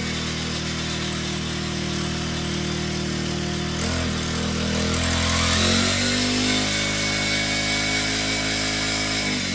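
Four-stroke brush cutter (paddy cutter) engine running with its circular blade spinning; the revs pick up a little past the middle and drop near the end.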